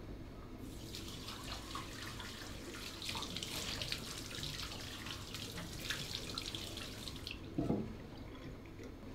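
Bathroom tap running into a sink, with splashing as water is scooped onto a face; the water stops about seven seconds in. A short dull thump follows soon after.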